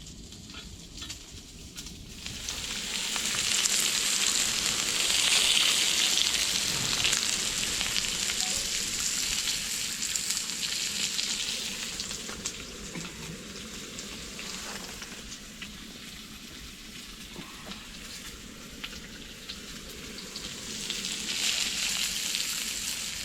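Food sizzling over heat, a dense hiss with small crackles. It swells about two seconds in, eases off after about twelve seconds, and rises again near the end.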